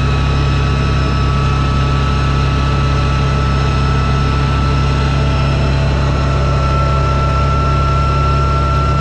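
Vehicle engine and drivetrain running at a steady speed: a constant low drone with a thin whine that edges up slightly about six seconds in.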